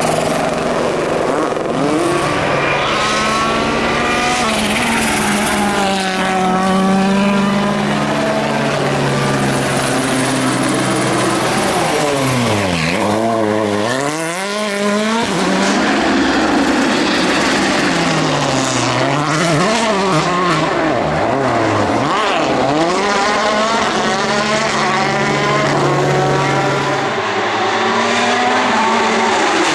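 World Rally Car engines, 1.6-litre turbocharged four-cylinders, revving hard through gear changes as the cars brake and accelerate. The engine pitch climbs and falls over and over, with a deep drop and a sharp climb about halfway through.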